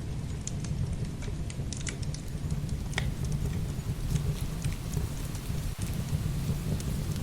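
Heavy rain with a steady low rumble, overlaid by the crackle of burning firewood: scattered sharp pops, with one louder pop about three seconds in.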